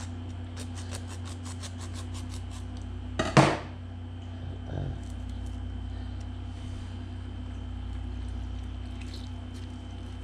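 Hand squeezing a fresh lime over a bowl: a quick run of small clicks in the first two seconds, then one loud knock about three seconds in and a softer one a second later, over a steady low hum.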